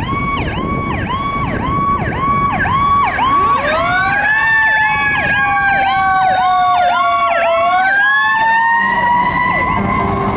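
Fire engine sirens. An electronic siren cycles rapidly, about two cycles a second. About three seconds in, a mechanical siren winds up, slowly sags in pitch, then winds up again near the end as the electronic siren stops.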